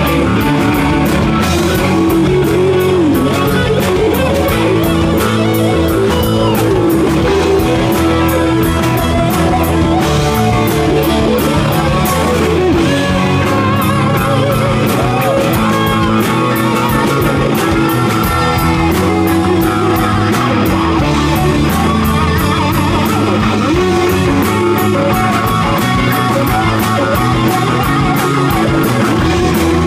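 Live rock band playing loudly: electric guitars and bass over a drum kit, with cymbals marking a steady beat.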